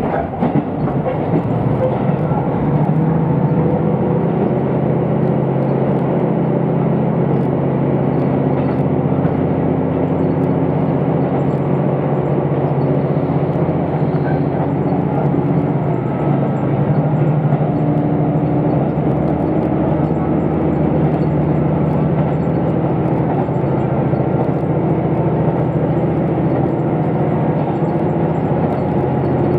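Inside a KiHa 75 diesel railcar running at speed: a steady engine drone over the rumble of wheels on rail.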